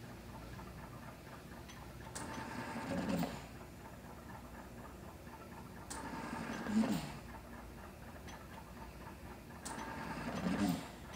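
Mechanical ventilator breathing for a person with spinal muscular atrophy type 1: on each breath a click, then a rush of air that swells for about a second and stops. Three breaths, about four seconds apart.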